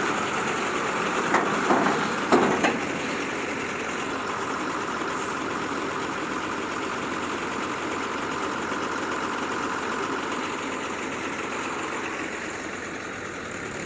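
Heavy vehicle engine running steadily, with a few short knocks about two seconds in.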